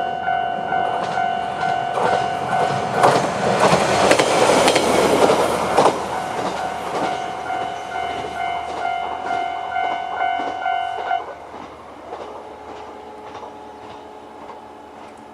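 Japanese level-crossing warning bell ringing in a steady repeating pattern as an AN-8900 diesel railcar passes over the crossing, its wheels clacking over the rail joints, loudest about three to six seconds in. The bell stops about eleven seconds in, leaving a fainter steady drone that fades.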